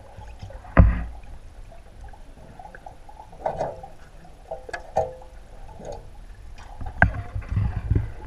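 Underwater recording: muffled water noise broken by sharp knocks and thuds, the loudest about a second in and a cluster of low thumps near the end.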